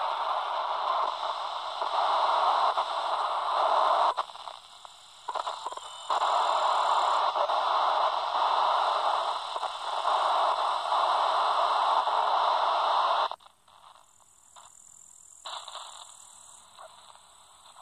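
Static hiss from the Albrecht AE2990 AFS handheld CB radio's speaker as it is stepped through 27 MHz frequencies with no station heard. The hiss cuts out briefly a few times around four to six seconds in and falls much quieter about thirteen seconds in.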